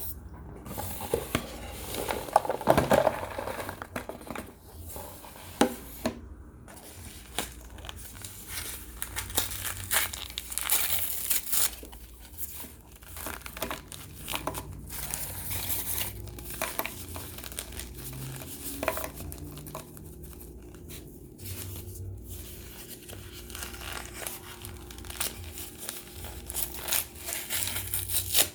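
Baked cornstarch chunks being crunched and crumbled, a dense irregular crackling with sharper cracks here and there, loudest about two to three seconds in.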